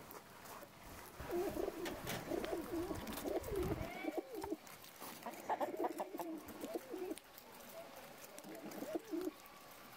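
Pigeons cooing: soft, wavering coos in a long bout about a second in, another around the middle, and a short one near the end.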